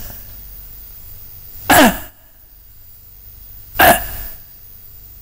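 Two short, forceful breathy vocal bursts from a man, about two seconds apart, the first sliding down in pitch.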